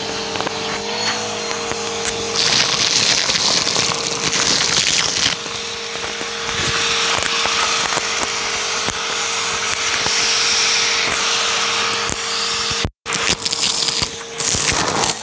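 Vacuum cleaner hose with a narrow nozzle sucking up a heap of confetti, sequins and small grain-like debris from a rug. A steady motor whine runs under dense crackling and rattling as the bits are drawn up the hose, and it cuts out for an instant near the end.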